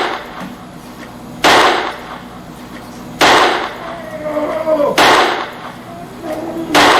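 A series of loud, sudden bangs, four of them, evenly spaced a little under two seconds apart, each dying away with a short ringing tail.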